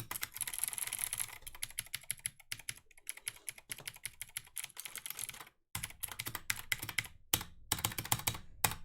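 Typing on a Clix keyboard: a quick, irregular run of key clicks, with a brief pause a little past halfway before the clicking resumes.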